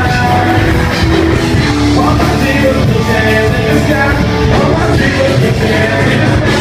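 Loud live rock music: a band playing with a voice singing over it.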